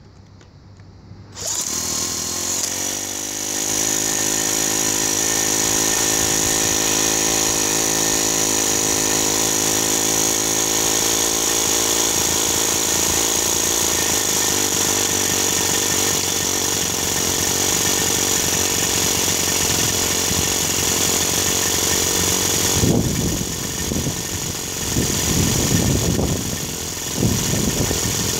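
A cordless drill spins up the O.S. FS-26S four-stroke glow engine of a model live-diesel locomotive, and the engine catches almost at once. It then runs fast and steadily with a high whine, its pitch settling over the first few seconds. From about 23 s in the running turns rough and uneven.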